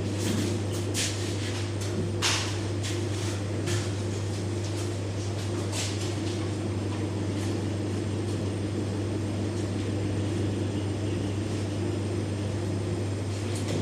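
A steady low mechanical hum, with a handful of sharp knocks and clatters in the first six seconds, as of parts being handled during an installation.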